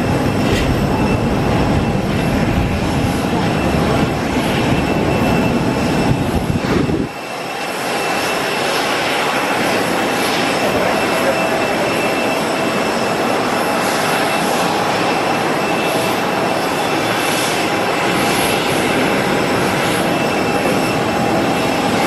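Jet aircraft on an airport ramp: a steady engine whine over a hissing rush. A heavy low rumble underneath drops away suddenly about seven seconds in.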